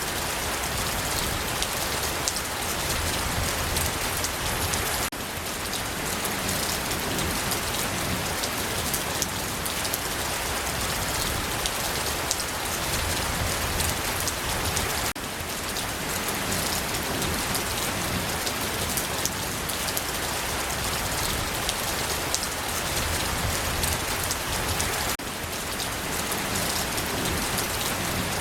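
Steady rain falling, a dense even patter of drops. The level dips suddenly and briefly about every ten seconds.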